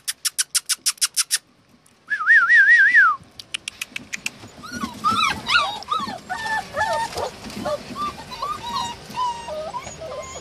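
A fast run of sharp clicks, about eight a second, then after a short pause a loud warbling whistle for about a second. From about four seconds in, a litter of Samoyed puppies whimpering and yipping, many short high whines overlapping.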